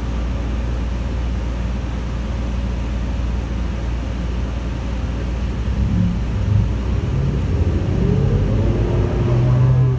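Cummins L9N natural-gas engine of a New Flyer Xcelsior XN40 bus, heard from inside the cabin, running steadily at idle with a low hum, then getting louder and rising in pitch from about six seconds in as the bus pulls away, with a rising whine near the end.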